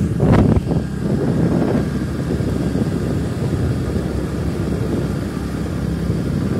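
Small two-wheeler engine running steadily while riding, mixed with wind and road rush on the microphone, with a brief louder rush about half a second in.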